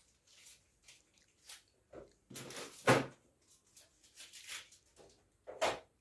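Groceries being handled and put away in an open refrigerator: rustling of packaging and clunks of containers set down on the shelves, the loudest knock about three seconds in and another near the end.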